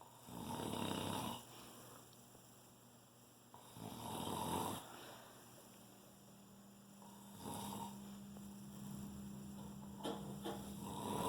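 Someone asleep, snoring: four slow, rasping snores, each about a second long and roughly three seconds apart.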